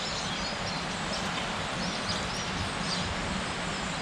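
Steady outdoor background noise with a few faint bird chirps.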